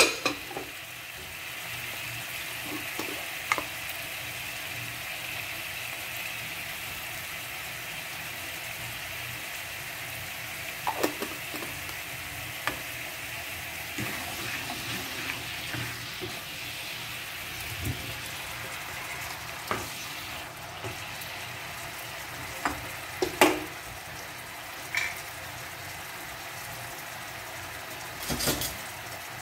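Soy sauce, garlic and sugar sauce simmering and sizzling steadily in a nonstick frying pan, with scattered scrapes and knocks of a spatula stirring it and a cluster of clatters near the end.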